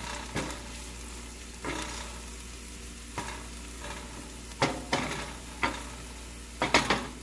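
Chopped onions and green onions sizzling in oil in a stainless steel skillet as a wooden spoon stirs them. About eight short scrapes and taps of the spoon on the pan cut through the steady sizzle, the loudest a little past the middle and again near the end.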